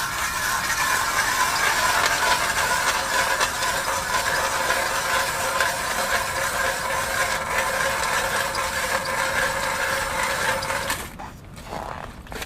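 Power drill running steadily under load as it bores into thick ice, with an even whine; it stops about eleven seconds in.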